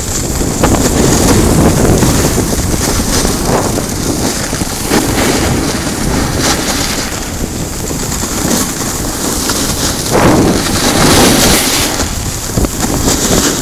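Heavy wind buffeting on the camera's microphone as it travels down a ski slope at speed, swelling and easing every second or two, mixed with the hiss of gliding over packed snow.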